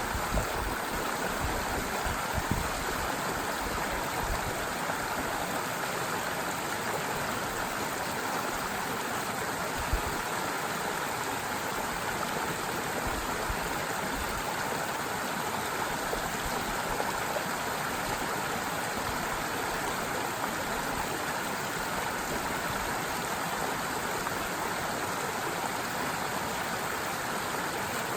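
Stream water running steadily over stones, with a few brief low bumps in the first few seconds and one about ten seconds in.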